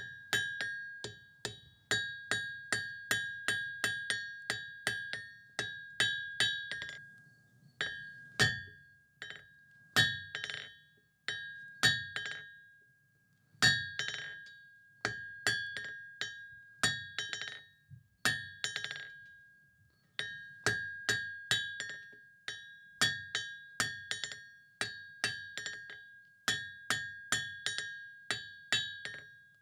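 Hand hammer striking hot steel on an anvil, drawing a taper on the end of a round bar. The blows come in quick runs of about three a second, each leaving a high ring from the anvil, with short pauses between runs.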